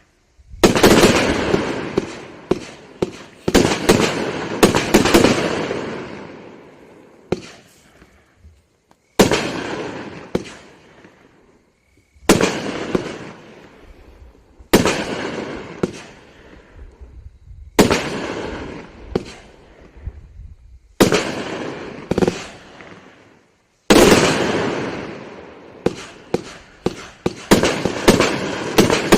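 A 30-shot, 500-gram consumer fireworks cake (Great Grizzly Velvet Fog) firing: shells launch and burst every two to three seconds. Each burst is followed by a dense run of sharp pops and crackles that fade away before the next shot.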